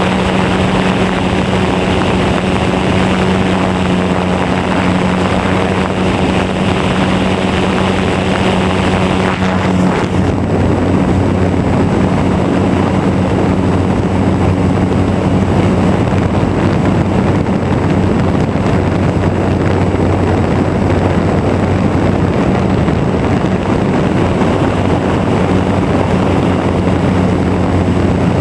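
Radio-controlled Super Cub model airplane's motor and propeller running steadily in flight, heard from a camera on board with air rushing past; about ten seconds in the note drops lower.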